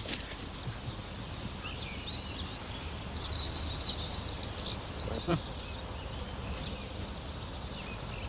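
Small songbirds chirping in woodland, with a quick rapid trill about three seconds in. A single short snap or step sounds about five seconds in.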